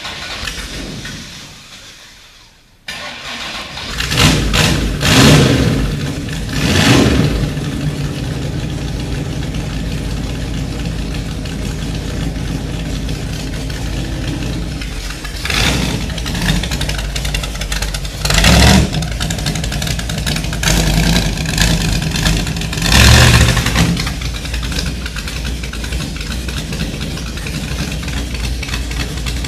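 A race car's 392 Hemi V8 starts up about three seconds in. It is then revved in short blips several times, idling steadily between them.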